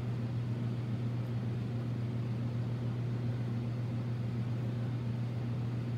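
Steady low electrical hum with a faint even hiss, unchanging throughout; the knife drawn through the soft clay makes no sound that stands out from it.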